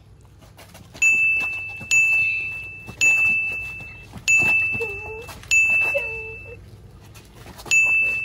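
A bright 'ding' sound effect sounds six times at irregular intervals of about one to two seconds. Each is a single high bell-like ring that starts sharply and fades, and each marks another jab step by the ball handler in a one-on-one basketball game.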